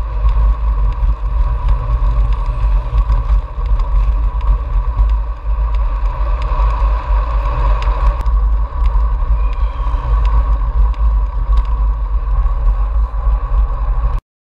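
Riding noise from a road bike on a tarmac lane: heavy wind rumble on the camera microphone over steady tyre noise, with small clicks and rattles from bumps in the road. It cuts off suddenly near the end.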